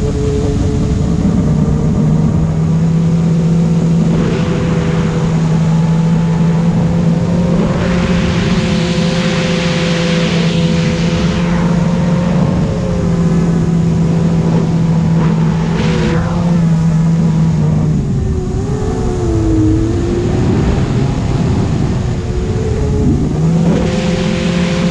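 Motors and propellers of a self-built FPV quadcopter, heard from its onboard camera: a steady whine whose pitch shifts with throttle, with several swells of rushing wind noise. About three quarters of the way through, the steady tone breaks up and wavers for a few seconds before settling again.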